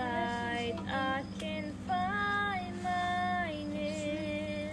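A child singing solo, a slow melody of long held notes, the last one held for more than a second. A faint steady low hum runs underneath.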